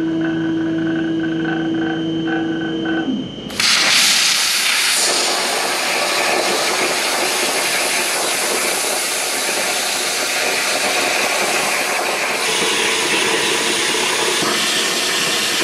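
CNC plasma cutter: a steady hum with a few short beeps, then about three and a half seconds in the plasma arc fires and a loud, steady hiss runs as the torch cuts holes through half-inch steel plate.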